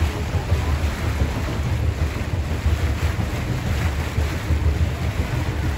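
Wind buffeting the microphone aboard a moving boat, a steady low rumble with the wash of water underneath.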